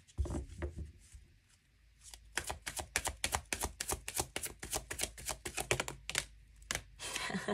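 A deck of oracle cards being shuffled by hand: a quick run of card snaps and clicks, about seven a second, with a short lull about a second in and a brushing sweep near the end.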